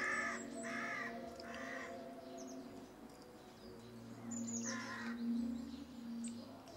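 Hooded crow cawing as it mobs a white-tailed eagle: three harsh caws in the first two seconds, then another about two-thirds of the way through.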